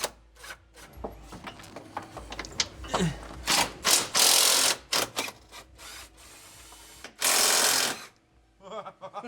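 Air tool running in short bursts on the 18 mm subframe bolts of a BMW E39, the longest and loudest burst near the end, with scattered clicks between the bursts.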